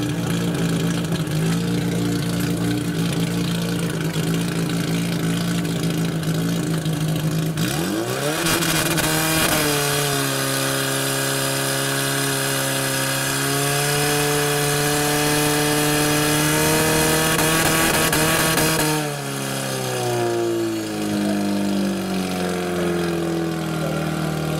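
Portable fire pump engine idling steadily, then revved up sharply about eight seconds in and held at full throttle for about ten seconds while it drives water through the attack hoses. It is then throttled back down in steps to a low steady run near the end.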